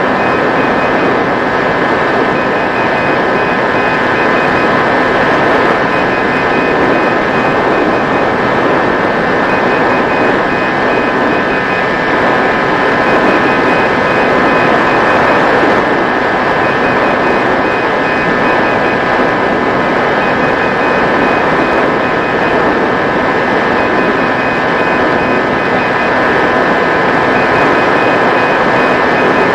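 Mini Drak flying wing's electric motor and propeller running steadily in flight, a constant whine under loud wind hiss. A faint beeping pattern repeats about every two seconds.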